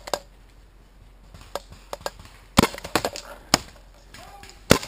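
Paintball markers firing: a scatter of sharp cracks at irregular spacing, some in quick clusters, with the loudest about two and a half seconds in, about three and a half seconds in, and near the end.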